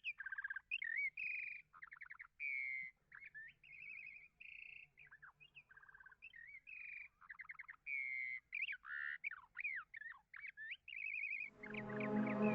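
A bird singing a rapid, varied song of whistles, trills and chirps. Music with bowed strings fades in about a second before the end.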